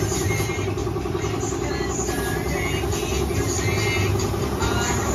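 Air compressor running steadily, with the hiss of a compressed-air spray gun laying on paint.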